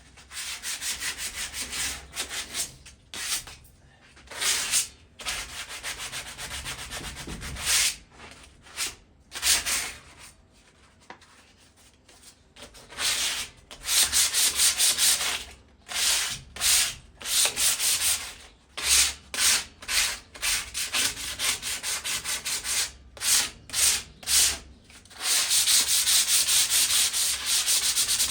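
Sandpaper rubbing back and forth over a rusted metal patio chair, scouring off surface rust. It comes in runs of quick strokes with short gaps, eases off for a few seconds a little over a third of the way in, and turns steadier near the end.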